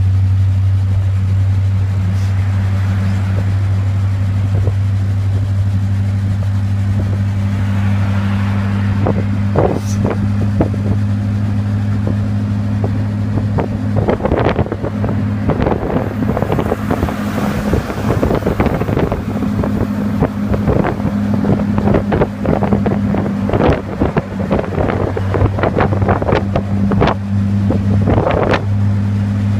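A car driving, heard from inside the cabin: the engine and road noise make a steady low hum. From about halfway through, irregular knocks and crackles come and go over it.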